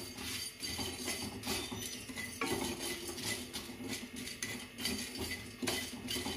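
Wooden spatula stirring and scraping whole spices (cumin, coriander seeds, cloves, cardamom, cinnamon and a dried red chilli) around a dry kadhai as they dry-roast, in a run of short scrapes and rattles.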